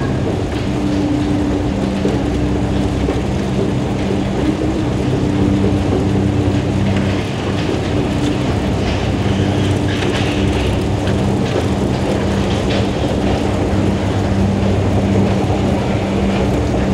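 The Chongqing Crown Grand Escalator, a long escalator, running while ridden: a steady machine hum under a continuous noisy rumble of the moving steps.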